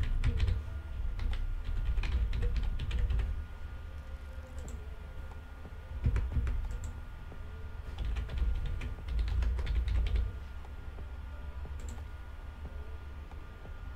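Typing on a computer keyboard in three runs of keystrokes separated by short pauses, followed near the end by a single click.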